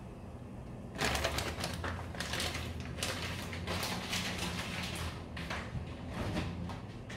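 A saucepan of water at a rolling boil, bubbling with rapid popping as a bundle of jjolmyeon noodles goes in. The bubbling starts about a second in and eases near the end.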